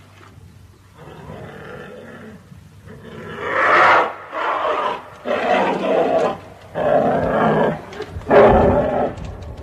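Bear growling low, then roaring in a run of about five loud calls, each under a second long, with short breaks between them.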